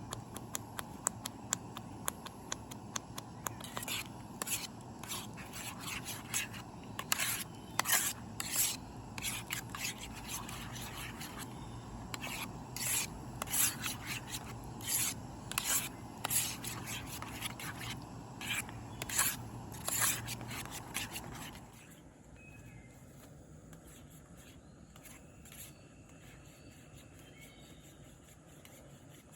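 A spoon scraping around the bottom of a pot while stew is stirred, in quick irregular strokes over a steady low rushing noise. The scraping and the rushing both stop suddenly about three-quarters of the way through.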